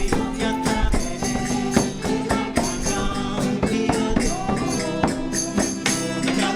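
Background music with a steady beat of percussion strikes under sustained melodic parts.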